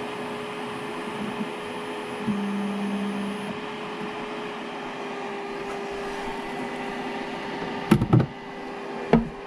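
ELEGOO Mars resin 3D printer humming steadily as a print starts, with a brief louder tone about two seconds in. Near the end come a few sharp knocks as the printer's plastic lid is set in place.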